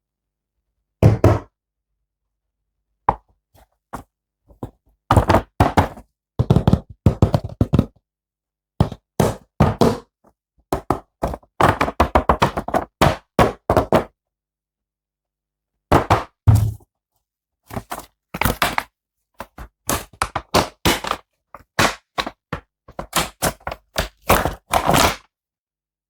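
Rapid, irregular knocks, taps and thuds of hard objects in clusters, with dead silence between them.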